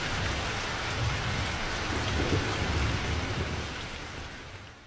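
Steady rain falling, with a low rumble of thunder underneath. It swells around two to three seconds in and fades away near the end.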